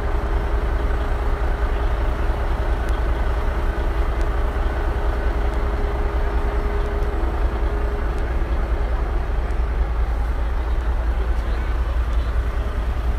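Vehicle engine running with a steady low rumble and a faint steady hum that fades out about two-thirds of the way through.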